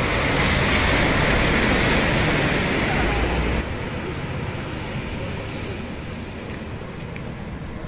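A bus driving through floodwater close by, its engine running and its wheels throwing up splashing water, loud and steady. About three and a half seconds in, the sound drops abruptly to a quieter, steady rush of floodwater with a truck driving through it farther off.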